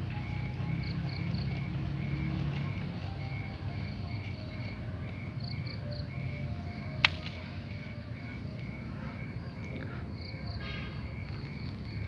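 Insects chirping in an even rhythm, a few short chirps a second, over a low steady hum, with one sharp click about seven seconds in.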